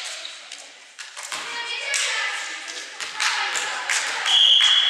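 Indoor volleyball rally: the ball is struck several times with sharp slaps and thumps that echo in the hall, amid players' shouts. About four seconds in, a referee's whistle sounds once, a steady high tone held for about half a second.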